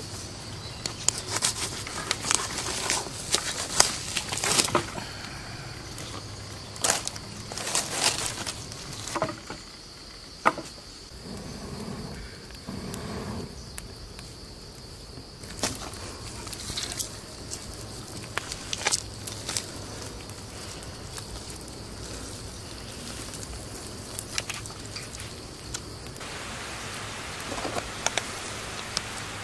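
Irregular crackling, rustling and sharp clicks of hands pulling at and tearing the skin of a scalded chicken carcass, busiest in the first ten seconds, over a steady high insect buzz. Near the end the buzz stops and a steady hiss takes over.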